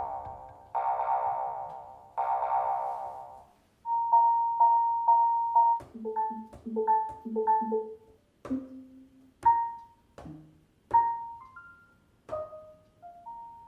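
Music built from appliance-style sounds: three long keyboard-like chords, then a run of short electronic beeps at several pitches, each with a sharp click, arranged in a rhythm.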